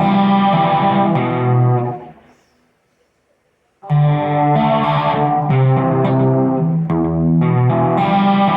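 Music led by electric guitar playing sustained notes and chords. The sound dies away about two seconds in, drops to near silence for about a second and a half, then the playing comes back in sharply.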